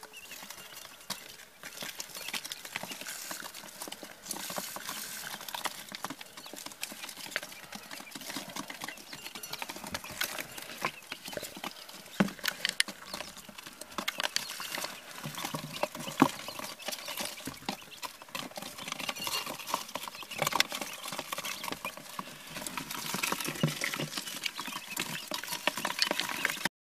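Day-old quail chicks pecking at feed on the brooder floor and in a metal feed dish: an irregular patter of small taps and clicks.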